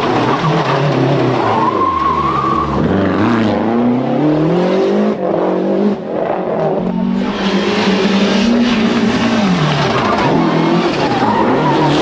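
Lancia Delta HF Integrale rally car's turbocharged 2.0-litre four-cylinder engine at full effort, revs rising and falling repeatedly through gear changes and braking. A brief high tyre squeal sounds about two seconds in.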